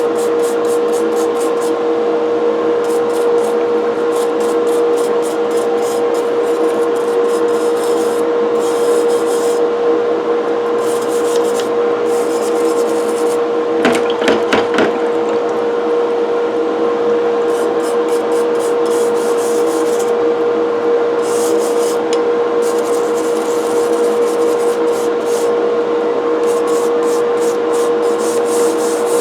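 Powered wire brush running with a steady hum while its bristles scrub cast-iron coffee grinder parts clean, in repeated rapid scratchy strokes. There is a brief, louder scrape about halfway through.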